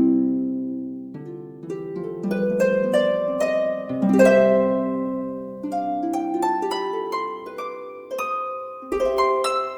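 Background music: a harp playing gentle plucked arpeggios, notes ringing and fading in rising runs.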